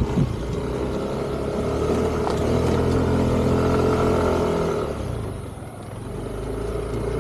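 Motorbike engine running, getting louder a couple of seconds in, then easing off about five seconds in before picking up again.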